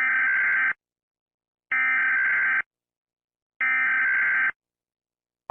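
Emergency Alert System SAME header: three identical bursts of buzzy digital data tones, each just under a second long, about a second apart. This coded burst opens an EAS alert, ahead of the long attention tone.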